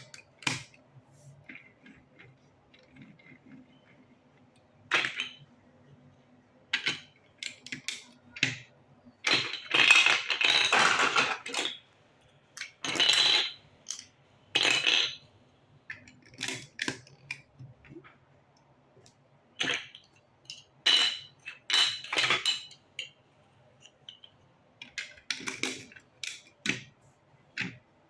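Plastic building bricks clicking and rattling as pieces are handled and snapped together, in scattered clicks and short rattling spells with pauses between.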